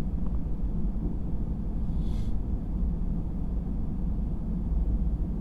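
Low, steady rumble of a RAM 3500's 6.4 HEMI V8 engine and tyres, heard from inside the cab as the truck rolls slowly over snow, with a brief hiss about two seconds in.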